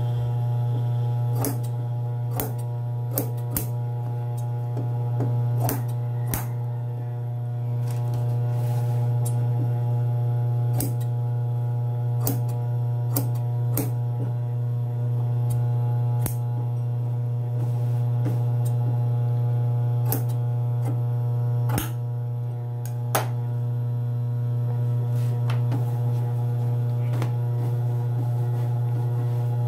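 Steady electric hum of an idling industrial sewing machine's motor, with irregular light clicks and snips from fabric being handled and trimmed with scissors.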